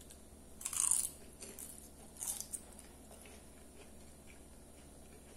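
Biting into a crisp fried potato slice: a loud crunch just under a second in, a few softer chewing crunches, then a second crunch a little past two seconds.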